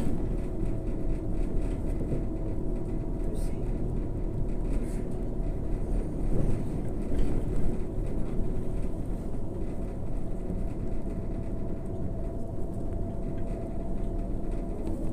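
Irisbus Crealis 18 natural-gas (GNV) bus on the move: a steady engine and driveline drone with a constant whine held at one pitch.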